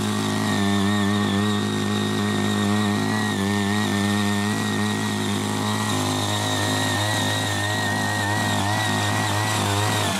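Small petrol engine of a Ching Yee CY80 mini power tiller running steadily at working speed while its rotary tines churn through grassy soil.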